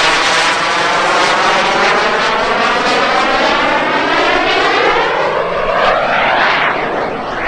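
Subsonex JSX-2 mini-jet's small turbojet engine running steadily through an aerobatic pass, a loud, continuous rushing roar. It has a sweeping, phasing sound that shifts as the jet moves across the sky, and brightens briefly near the end.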